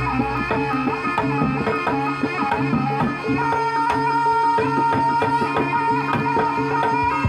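Jaranan dance accompaniment music: quick hand-drum strokes over sustained melody tones, with one high note held from about halfway through.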